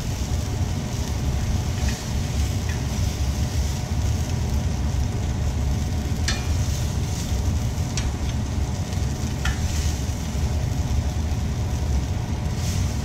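Avocado oil sizzling as sea scallops sear in hot pans. A few sharp clicks of metal tongs on the cast iron pan as the scallops are lifted out, over a steady low hum.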